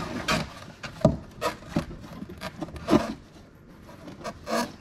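Cardboard subscription box being closed: the lid flap scraping and rubbing against the box, with several separate short knocks and scrapes, the sharpest about a second in and again about three seconds in.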